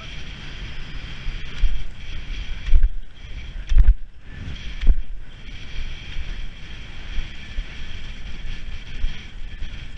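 Cross-country skis hissing steadily over packed snow, with wind buffeting the microphone. Four heavy low thumps come about a second apart between roughly one and a half and five seconds in.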